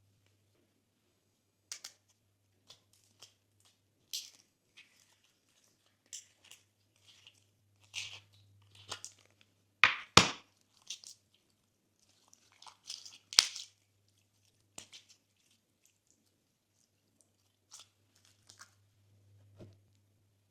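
Glossy slime being pressed and stretched by hand, giving irregular sticky crackles and small popping clicks, with the loudest pair of pops about ten seconds in.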